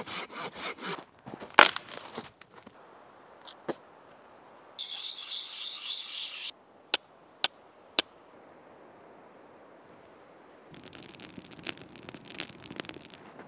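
Outdoor gear being worked by hand: quick scrapes and knocks, a hard knock about a second and a half in, a couple of seconds of harsh scraping near the middle, then three sharp strikes about half a second apart, and a rustly patter of small clicks near the end.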